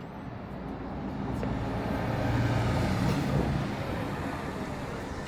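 A road vehicle driving past, its engine and tyre noise swelling to a peak midway and fading away.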